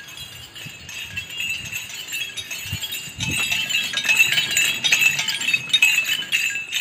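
Light metallic jingling and clinking, irregular and getting louder about halfway through, as of small metal pieces shaken with each step while walking.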